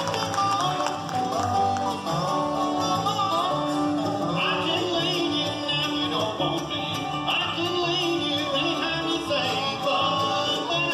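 Bluegrass band playing live on banjo, mandolin, acoustic guitars, resonator guitar and upright bass, with singing.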